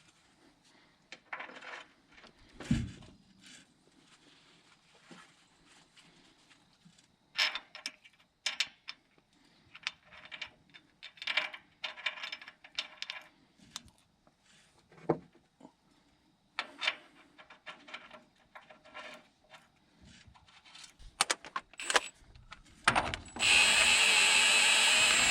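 Metal hand tools and parts clinking and scraping in irregular short knocks while working on a truck's wheel hub and brakes, then a power tool starts near the end and runs steadily.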